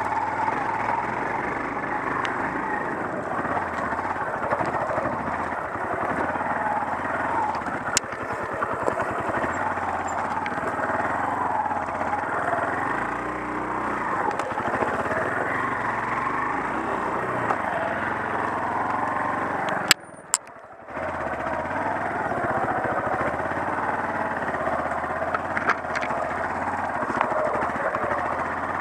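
Off-road motorcycle engine running as the bike rides a rough dirt trail, with a few sharp knocks from the bike over bumps. The sound cuts out for about a second about two-thirds of the way through.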